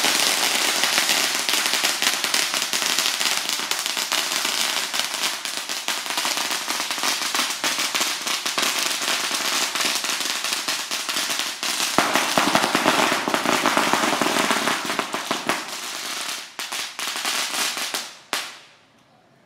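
A long string of firecrackers going off in a dense, rapid crackle. It gets louder again about twelve seconds in, then thins to a few last cracks and stops about eighteen seconds in.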